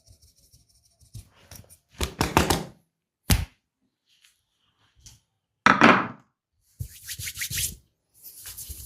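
Hand strikes of a barber's massage: two quick runs of chopping slaps on the body, with a single sharp smack and a louder slap between them.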